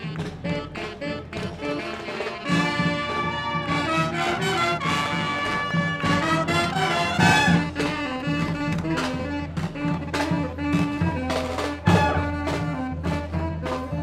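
Marching street brass band playing: trumpets, saxophones and trombone over a steady bass drum and percussion beat, the horns coming in strongly about two and a half seconds in.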